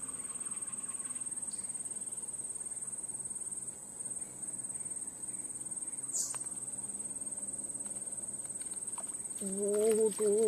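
Steady high-pitched drone of insects, with a brief tick about six seconds in. Near the end a voice starts, wavering in pitch.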